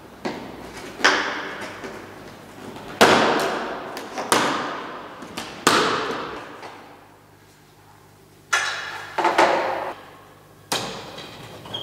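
Sharp clacks and knocks from an old fluorescent tube ceiling fixture being handled and opened up, about seven hits spread irregularly, each ringing and echoing briefly.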